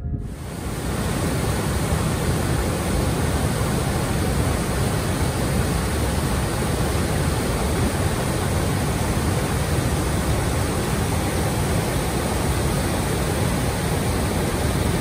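Shallow river rushing steadily over a low cascade and around boulders, a loud, even wash of water noise.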